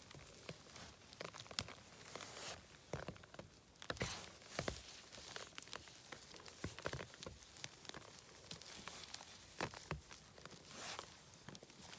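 Close, faint rustling and crackling of a gloved hand pulling mushrooms out of wet moss, with scattered short snaps and crinkles as stems break and moss tears.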